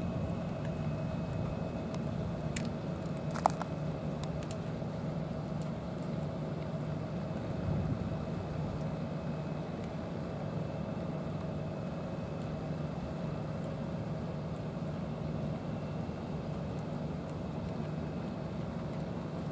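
Steady low mechanical hum, with one sharp click about three and a half seconds in.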